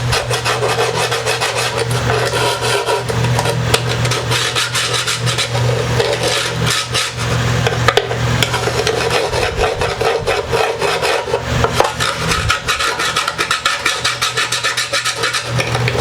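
Wood of a plywood guitar top being filed at the rough edges of a pickup hole: continuous rapid rasping strokes over a steady low hum.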